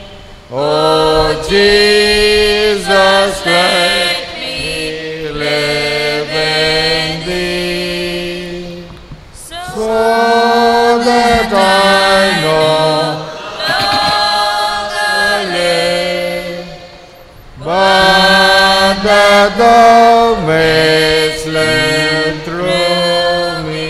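Offertory hymn sung slowly in long held notes, in several phrases with short breaks between them.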